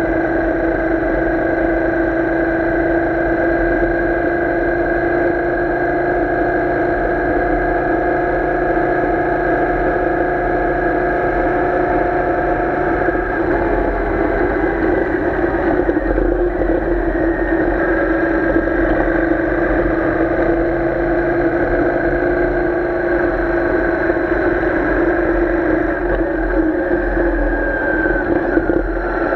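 Royal Enfield Interceptor 650's parallel-twin engine running at steady cruising revs, heard from the handlebars, with the revs dropping a little near the end as the bike slows.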